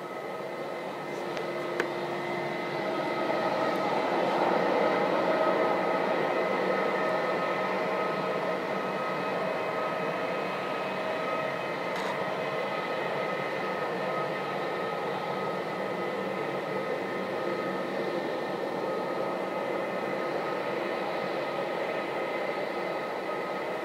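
Airbus A320 jet engines running at taxi power as the airliner taxis: a steady whine of several high tones over a rushing hiss, loudest a few seconds in and then holding steady.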